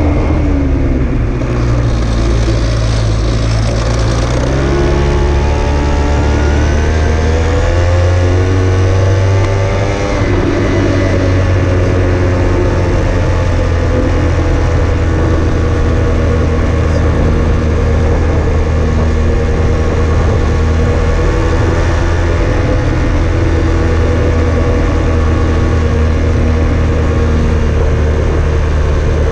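A vehicle's engine on the move, rising in pitch for several seconds as it speeds up, dropping at about ten seconds in, then running steadily, with road and wind noise underneath.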